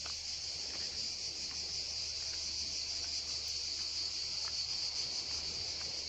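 A chorus of cicadas chirring steadily, one dense high-pitched drone.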